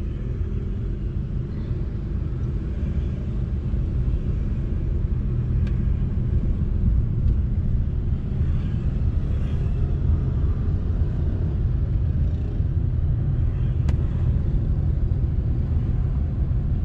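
Steady low rumble of road and engine noise inside a moving car's cabin, growing a little louder about four seconds in.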